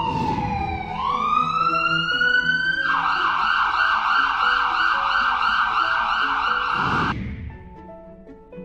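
Ambulance siren: a slow wail that falls, then rises, then switches to a fast warble, which cuts off about seven seconds in.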